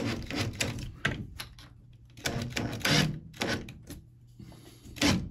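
Cordless drill/driver tightening the screw on a metal cabinet wall-mounting bracket, with sharp clicks and knocks of the bit and bracket and a burst of driving of about a second midway.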